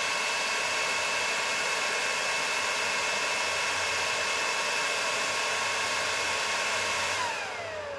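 Supermicro SYS-E300-9D server's cooling fans running at high speed in Heavy IO fan mode, a steady rushing hiss with a high whine. About seven seconds in they spin down, the whine falling in pitch and the noise easing off, as the fan mode is switched to Standard.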